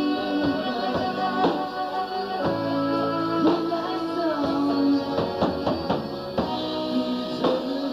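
Live rock band playing, with a steady drum beat and sustained keyboard notes from an Ensoniq synthesizer.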